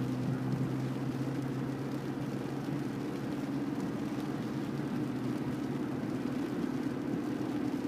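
Car driving on a rain-wet road, heard from inside the cabin: a steady engine drone over the hiss of the tyres on the wet surface.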